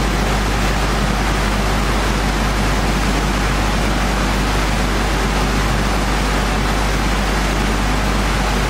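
Workshop machinery running steadily: a continuous loud rushing noise over a low hum, with no change in pitch or level.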